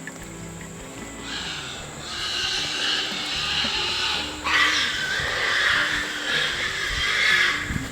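Feral hogs squealing harshly in two long stretches, typical of boars fighting, over a steady high insect drone.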